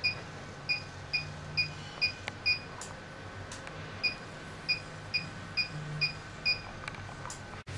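HIFU facial-lifting machine beeping as it fires a shot of ultrasound pulses: short high beeps about two a second, six in a row, a pause of about a second and a half, then six more, over a faint steady hum.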